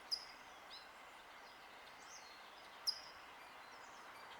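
Small birds chirping over a steady faint outdoor hiss: two short, sharp, high chirps, one just at the start and one about three seconds in, with a few fainter chirps between.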